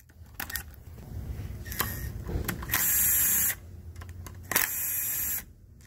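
Milwaukee M12 cordless impact driver with a socket running in two short bursts, about three seconds and four and a half seconds in, backing out 8 mm valve body bolts, with the clatter of handling in between.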